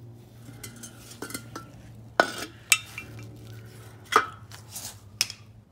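Metal exhaust parts clinking and clanking as they are handled, with four sharp clanks that ring briefly in the second half over a steady low hum.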